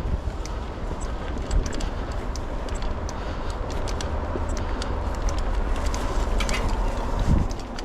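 Mountain bike riding over rocky, rooty singletrack: a steady low wind rumble on the microphone and tyre noise, with frequent sharp clicks and rattles from the bike and a heavier thump about seven seconds in.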